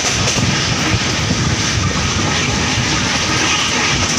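LHB passenger coach running at speed, about 110 km/h: a steady, loud rush of wheel, rail and wind noise.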